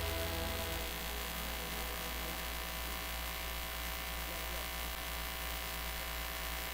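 Steady electrical mains hum from a sound system, with a faint hiss; the last of the preceding music dies away within the first second.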